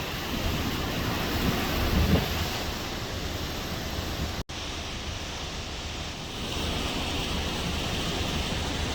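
Hurricane Nicole's wind blowing steadily and buffeting the microphone, with a brief dropout about halfway through.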